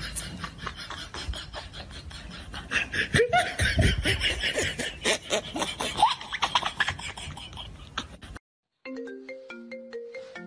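Music with a steady clicking beat, about four a second, and laughter over it, which cuts off suddenly after about eight seconds. A moment later a marimba-like ringtone melody of short, clean notes begins.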